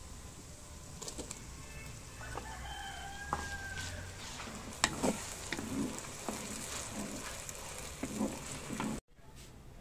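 Chopped vegetables sizzling in oil in a clay pot, with a wooden spatula stirring and scraping against the pot's sides from about halfway on. A rooster crows once in the background about three seconds in.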